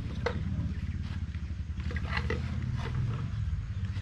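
A small engine idling with a steady low rumble, with a few light knocks and clatters over it.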